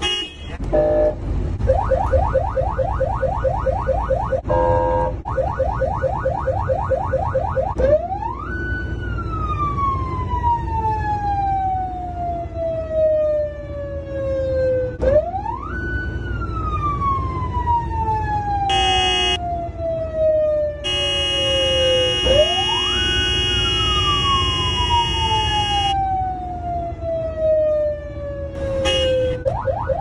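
Emergency-vehicle siren cycling through its tones: a rapid yelp of quick rising sweeps, then three long wails that each climb fast and slowly wind down in pitch, like a spinning mechanical siren coasting. Short steady horn-like blasts come in between, one of them about five seconds long, and the rapid yelp returns near the end.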